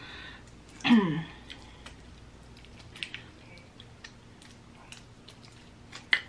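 Close-up eating of seafood boil: chewing, with scattered sharp clicks as shellfish is handled, loudest about six seconds in. About a second in, a short hum of the voice falls in pitch; it is the loudest sound.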